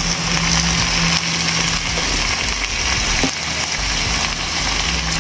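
Chicken pieces frying in hot oil in a pan on a gas stove: a steady sizzle with the hiss of the burner. A low hum underneath drops out about a second in.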